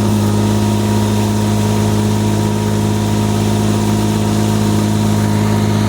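Weed-clearing boat's engine running steadily with a constant low hum, the pitch and level unchanging.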